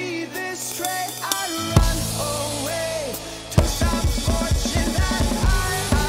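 Drum kit played along with a rock song recording: sustained melody notes with a single drum hit, then the full beat with kick and snare comes in about three and a half seconds in.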